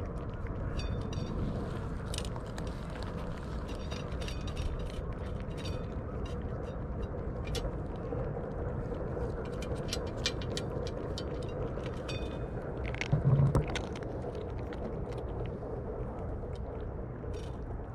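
Cats chewing and crunching dry kibble from stainless steel dishes: scattered quick clicks and crunches over a steady low background noise. One brief, louder low sound comes about two-thirds of the way through.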